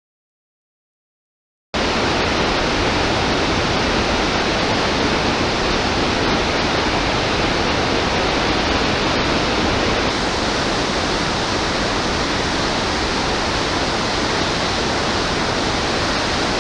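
Augrabies Falls on the Orange River in flood: a steady, dense rush of falling water. It cuts in suddenly after almost two seconds of dead silence.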